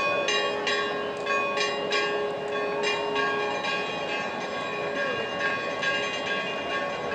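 Bells pealing, struck two or three times a second, each stroke ringing on into the next.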